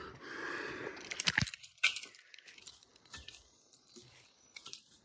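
A keychain remote on its key ring being handled: a rustle, then metal jingling with a few sharp clicks, loudest between one and two seconds in, trailing off into faint light rattles.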